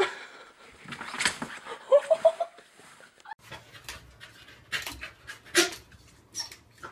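A corgi panting and shifting about, with a short rising squeak about two seconds in. Then, over a low hum, a few sharp clicks and knocks as a corgi jumps a baby gate.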